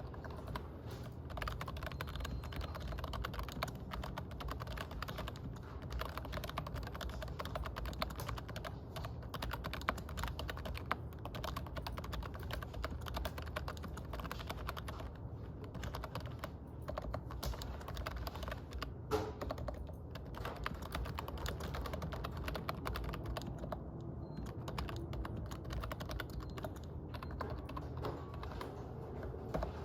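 Typing on a computer keyboard: a continuous run of quick, irregular key clicks over a steady low hum.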